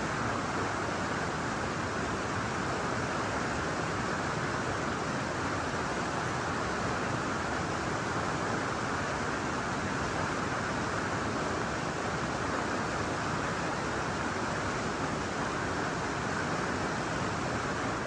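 Whitewater rapids rushing steadily over boulders, a constant, even sound of churning river water.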